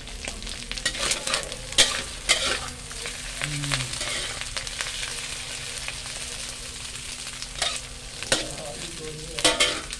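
Napa cabbage and egg sizzling in an aluminium wok while being stir-fried, with a metal spatula scraping and knocking against the pan. The sharpest scrapes come about two seconds in and again near the end, over a steady frying hiss.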